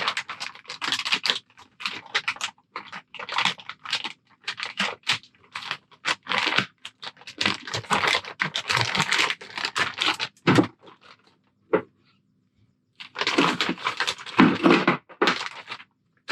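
Packaging being torn open and crinkled, with irregular clicks and clatter of the caster wheels and small parts being handled, in two spells with a short pause between.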